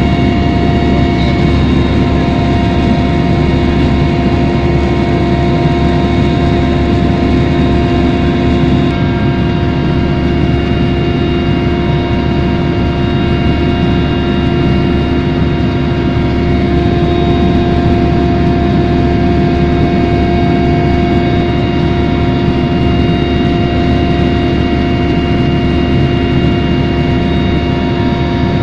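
Helicopter in flight heard inside the cabin: the steady drone of the turbine engine and rotors, with several constant high tones running over it.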